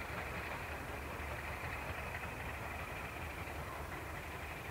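Class 31 diesel locomotive's English Electric V12 engine running as the train approaches at a distance, a steady low rumble.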